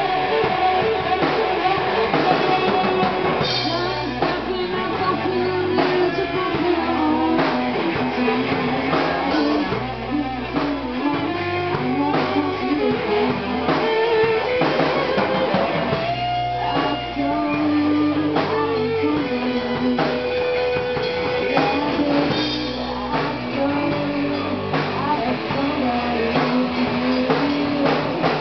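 Live rock band playing: electric guitars, electric bass and drum kit, with a woman singing.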